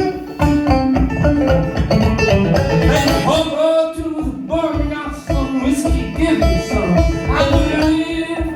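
Clawhammer banjo playing an old-time tune live, a steady run of brushed and picked notes over a regular pulse. Some gliding, held notes join in through the middle.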